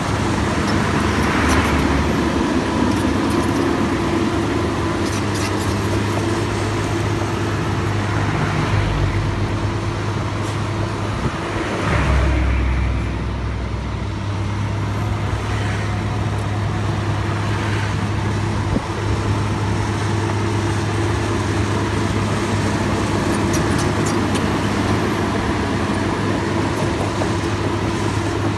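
Diesel engine of a Komatsu PC200 hydraulic excavator running steadily under work, with a brief low surge about twelve seconds in.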